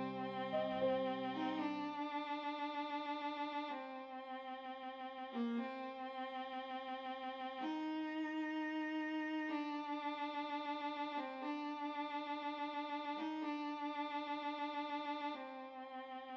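Background music: a violin playing slow, held notes with vibrato, moving to a new note every second or two.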